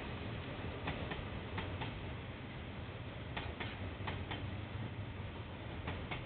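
Train wheels clicking over a rail joint as a train rolls slowly past: sharp clicks in pairs as each bogie's two axles cross, the pairs falling in a repeating pattern about every two and a half seconds, over a steady low rumble.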